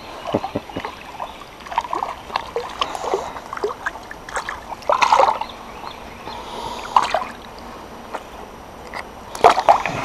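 Water splashing and sloshing irregularly, with louder splashes about five seconds in and near the end, most likely a hooked white perch thrashing at the surface as it is brought in.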